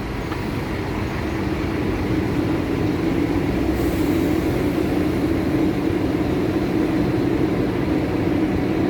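Toshiba top-load washing machine running just after start is pressed: a steady noise that grows louder over the first few seconds and then holds.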